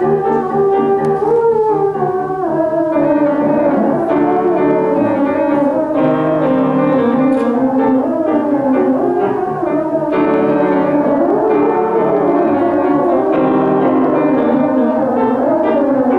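Ensemble of matryomins, matryoshka-doll-shaped theremins, playing a melody in several parts with gliding, wavering pitch, accompanied by piano.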